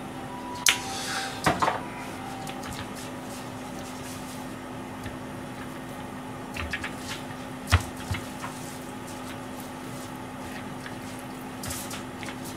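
A few sharp knocks and clatters of kitchen things being handled on a counter, the loudest under a second in and near eight seconds, over a steady low hum.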